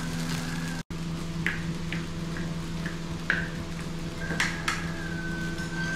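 Kitchen clatter: a few light knocks and clinks of pots and utensils over a steady low hum, with a thin steady high tone through the last second and a half. The sound drops out for a moment about a second in.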